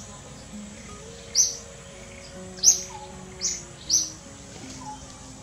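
About four short, sharp bird chirps at irregular intervals over faint background music of held low notes.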